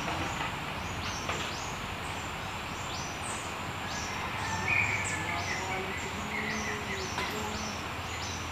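Outdoor bird and insect ambience: short high chirps repeating about twice a second over a steady hiss, with a few brief whistled notes around the middle.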